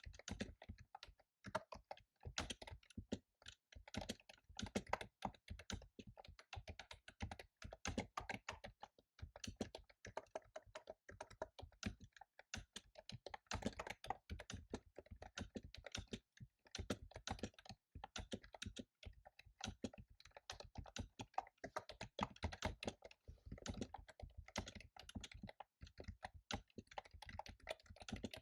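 Typing on a computer keyboard: fast, continuous runs of key clicks with a few brief pauses.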